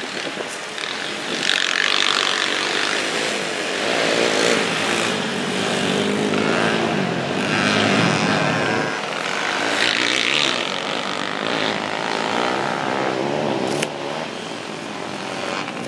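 Small engines of several mini trikes revving up and down as they race, pitch rising and falling and swelling louder as riders pass.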